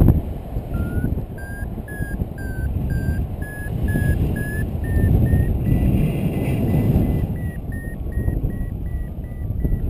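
Paragliding variometer beeping in short repeated tones that rise in pitch and then quicken, the sign of the glider climbing in lift. Wind rushes on the microphone underneath.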